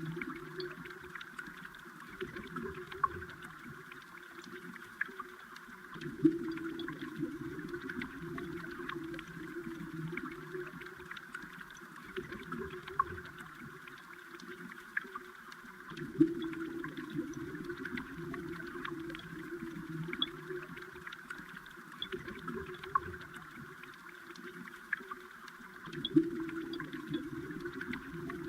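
Flowing water heard from underwater: a steady gurgling wash dotted with small sharp clicks, swelling louder about every ten seconds.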